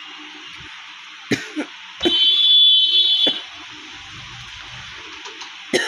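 A shrill, high-pitched tone sounds for just over a second, starting about two seconds in, among a few faint knocks.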